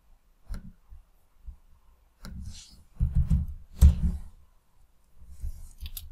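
Laptop keyboard and trackpad tapping and clicking: scattered keystrokes, then a quick run of taps about two to four seconds in, loudest near four seconds, with a few more clicks near the end.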